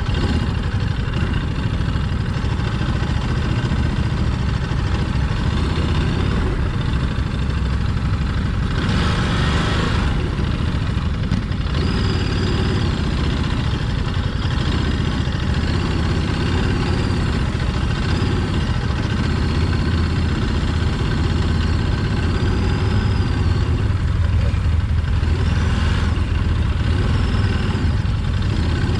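Motorcycle engine running steadily under way, its low note holding throughout.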